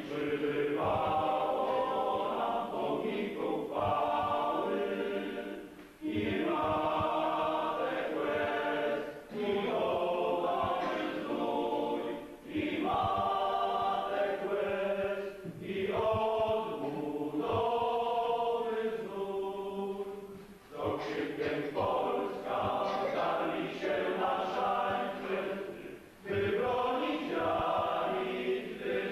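A group of voices singing a church hymn, in phrases a few seconds long with short breaks for breath between them.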